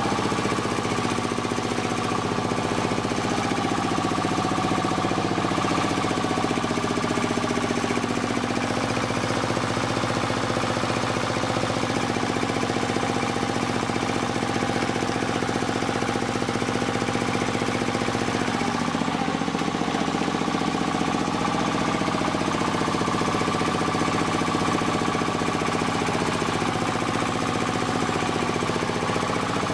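Single-cylinder diesel engine running steadily with a rapid, even knock, driving a belt-driven rice milling machine that hums along with it.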